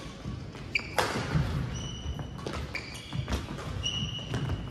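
Badminton rally on a hardwood gym floor: a sharp racket-on-shuttlecock hit about a second in, sneakers squeaking in short high squeals as players change direction, and footfalls thudding on the court.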